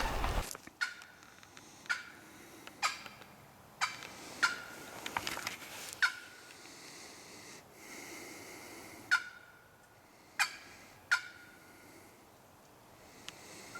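Turkey clucks: single short, sharp notes every second or so at an irregular pace, with a quick run of softer notes near the end.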